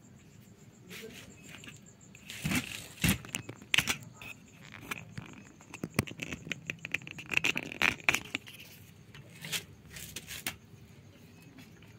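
A cat chewing and crunching a scrap of food, with irregular sharp crunches and clicks that come and go.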